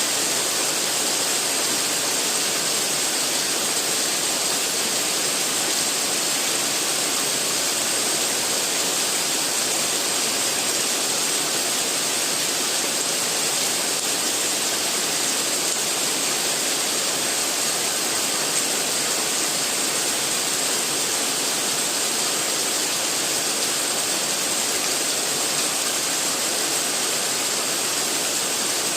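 Heavy rain falling steadily, an even, unbroken hiss that holds at one level throughout.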